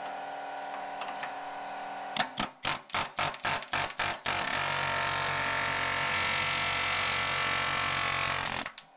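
A power tool working the car's body steel. After a steady low hum, it is run in quick short bursts, about four a second, for two seconds, then held on continuously for about four seconds before it stops suddenly near the end.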